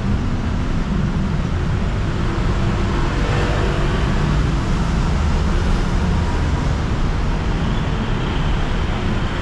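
Steady city street traffic noise: a continuous low rumble of passing cars and engines on a busy road.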